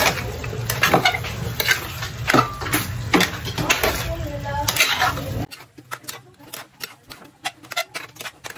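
Metal spatula stirring and scraping pieces of pork fat in a frying pan of bubbling sauce, with a sizzle under frequent clicks of metal on the pan. About halfway through, the sizzle cuts out suddenly, and only quieter spatula clicks and scrapes go on.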